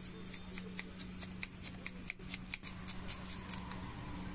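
Kitchen knife slicing an onion on a wooden chopping board: a quick run of short, crisp taps, about five or six a second, as the blade cuts through onto the wood. A steady low hum runs beneath.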